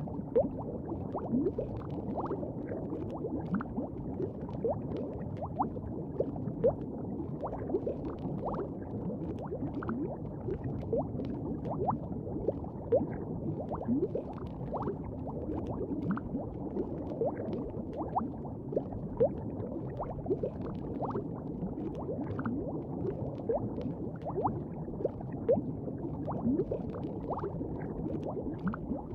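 Liquid bubbling steadily, a dense low gurgle with many short, rising bubble pops scattered through it.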